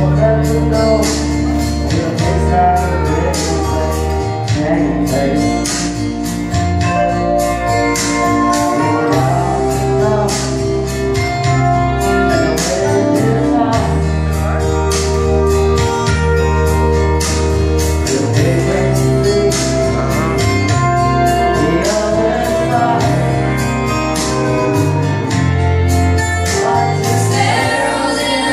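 A woman singing a country ballad into a microphone over a karaoke backing track with bass and a steady drum beat.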